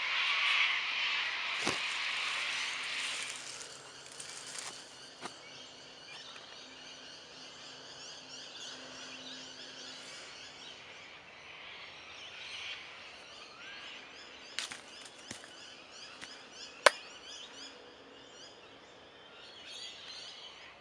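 Outdoor bushland ambience: a loud rushing hiss over the first few seconds fades to a quiet background with faint bird calls. Several sharp clicks are heard, the loudest about 17 seconds in.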